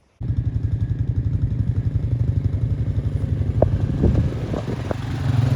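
A vehicle engine running steadily with a fast, even pulsing. It cuts in suddenly right at the start, and a few light knocks sound about halfway through.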